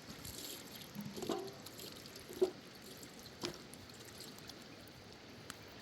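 Water trickling and splashing, with a few short, light knocks about a second apart.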